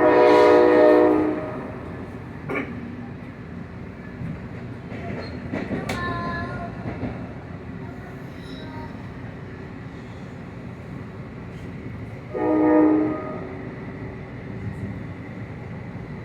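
Train horn blowing twice: a long blast at the start and a shorter one about twelve seconds in, over the steady rumble of a passing train.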